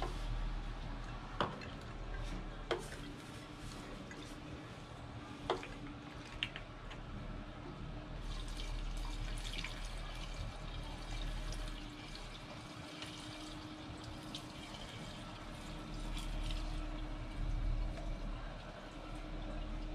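Gasoline trickling and dripping out of an upturned leaf blower's fuel tank through a plastic funnel into a plastic gas can, the tank being drained. A few sharp clicks from handling the blower and funnel come in the first several seconds.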